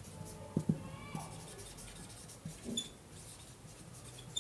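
Faint scratching of a pen writing, with a few soft, short low thumps.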